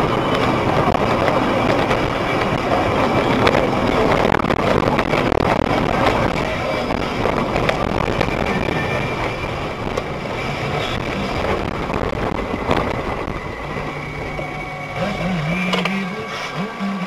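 Vehicle noise, a steady rushing sound as from a car on the road. About fourteen seconds in, a low wavering tone comes in over it.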